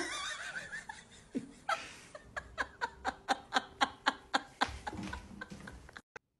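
A person laughing hard in a quick run of short bursts, about four a second, in the middle, after a sudden sharp sound at the very start.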